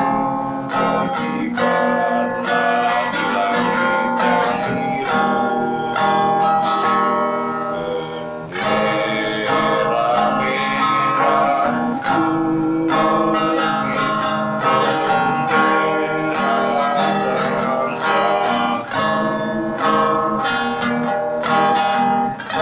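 Acoustic-electric guitar strummed and picked through a mini practice amplifier, a run of chords with regular strokes and ringing notes.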